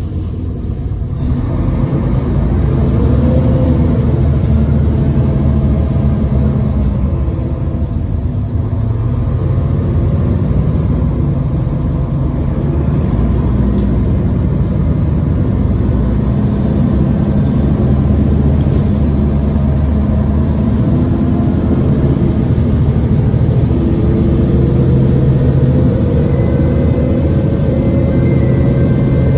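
Mercedes-Benz Citaro G articulated bus under way, heard from inside the passenger cabin: a steady low rumble of engine and road, with a tone rising slowly in pitch near the end.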